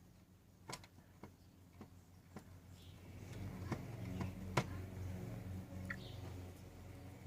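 Bauknecht WA 1460 washing machine running a mixed-laundry wash: scattered light clicks and knocks, and from about three seconds in a low, steady motor hum that grows louder as the drum turns.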